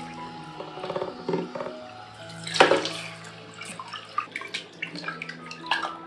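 Water from a handheld shower head running and splashing into a plastic tub as a cat is rinsed, with one louder splash about two and a half seconds in, over background music.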